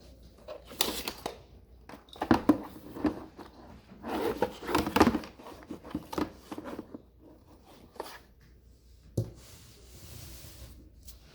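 Unboxing handling noise as a toddler booster seat and its packaging are handled: several uneven bursts of rustling and scraping, then a single sharp knock about nine seconds in.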